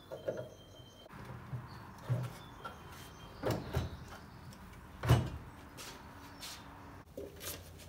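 Wood-on-wood knocking and scraping as a carved cottonwood dog model is handled on its pinned wooden base: several dull thumps, the loudest about five seconds in.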